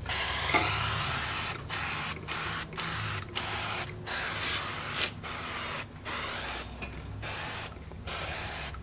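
Hand-pump garden sprayer misting solvent onto greasy metal in many short hissing bursts, each broken off by a brief pause.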